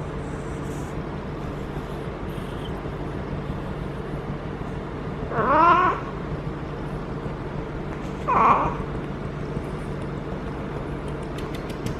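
Female cat in heat caterwauling: two drawn-out yowls, one about five seconds in and another about three seconds later, over a steady low hum.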